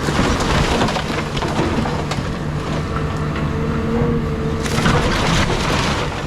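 Caterpillar 323 excavator's diesel engine running steadily, with crunching and cracking of a house's timber and debris being torn apart and crushed, once at the start and again about five seconds in.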